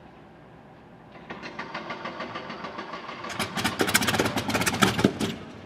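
Daimler-Benz DB 601 V12 of a Bf 109 E-3 starting up: about a second in the engine begins firing in a rapid, uneven stutter, then catches and runs loud while belching exhaust smoke, before falling away sharply near the end.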